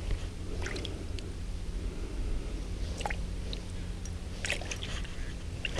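A few faint splashes and drips of water in an ice-fishing hole as a hand grips a large walleye and works it up through the hole, over a low steady rumble.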